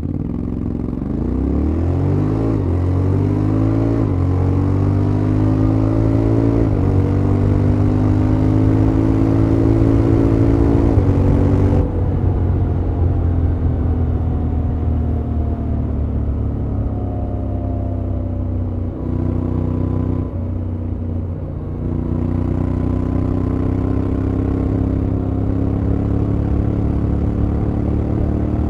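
Honda X-ADV 750's parallel-twin engine accelerating hard, its note rising then dropping at each of four automatic DCT upshifts in the first twelve seconds. It then backs off and cruises, the pitch falling and settling, with a few brief dips near the end.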